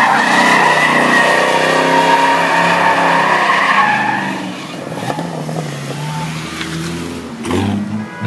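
Car drifting, its rear tires squealing loudly for about four and a half seconds, then the squeal fades and the engine revs up and down as the car keeps sliding.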